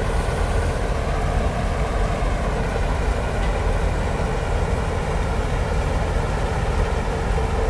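Combine harvester running steadily while cutting a mustard crop: a continuous engine and machinery drone.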